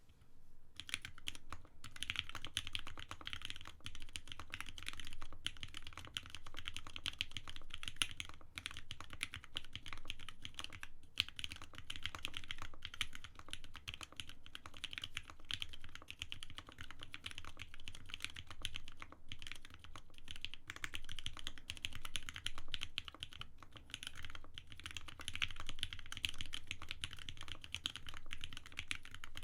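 Continuous fast typing on a Bear65 gasket-mounted custom mechanical keyboard with lubed Lavender switches, a polycarbonate plate, silicone gaskets and thin foam in the case: a deep, thocky clatter of keystrokes. It starts just under a second in, with a few brief pauses.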